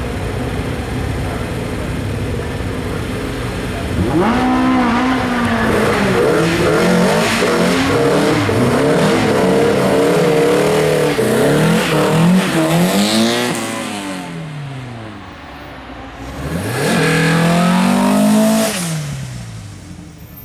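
Race-prepared Opel saloon engines revving hard at a hill-climb start, the pitch sweeping up and down again and again for about ten seconds. After a dip, a car revs up once more and then drops away near the end.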